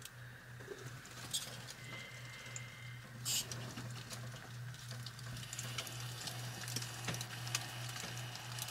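Faint scattered ticks and creaks over a steady low hum as a fifth-wheel trailer is lowered off its jack and its leaf-spring suspension with a SumoSpring takes up the weight. Two sharper clicks stand out, about a second and a half and three seconds in.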